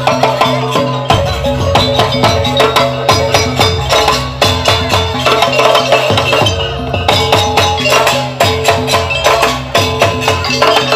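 Live gamelan-style ensemble accompanying a Jaranan Barong dance: fast, dense struck percussion, drum and metal mallet instruments hitting several times a second, over steady ringing gong-like tones.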